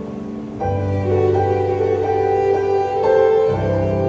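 Violin and digital stage piano playing a slow duet: a sustained bowed violin melody over held piano chords, with a deep bass chord coming in about half a second in and the harmony changing again near the end.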